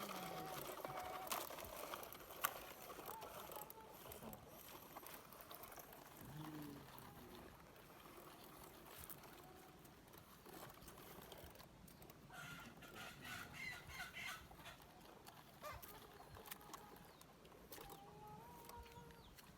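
Faint outdoor background with a few light clicks, and a short run of faint bird calls, likely chickens clucking, about two-thirds of the way through.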